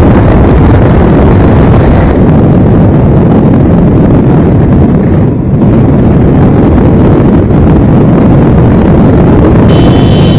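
Loud, steady wind buffeting on the microphone of a camera riding on a moving motorcycle, mixed with the bike's engine and road rumble.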